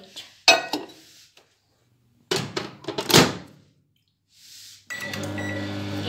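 A few knocks and clatters as a bowl is set into a Samsung microwave oven and the door is shut, then about five seconds in a short beep and the oven starts running with a steady low hum.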